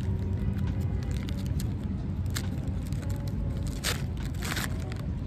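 Plastic snack bag of Goldfish crackers being pulled open: a few sharp crinkles, then a longer tear about four and a half seconds in, over a steady low background rumble.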